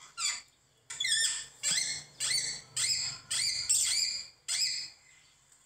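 A quick run of about eight high-pitched, squeaky chirps, each sliding in pitch, from a small animal.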